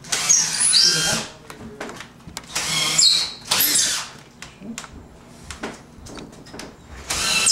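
Power drill driving screws to hang wall cabinets, running in several short bursts with its whine rising and falling in pitch.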